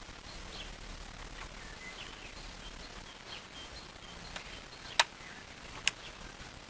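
Two sharp plastic clicks about a second apart, near the end, as the clips on a car's dashboard display unit are unsnapped by hand. Birds chirp faintly throughout.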